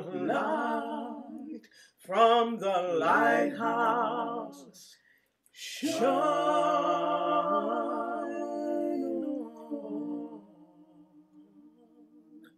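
A woman's voice singing a cappella, layered in several overdubbed parts: two short phrases with a wavering pitch, then a long held note from about six seconds in that grows quieter toward the end.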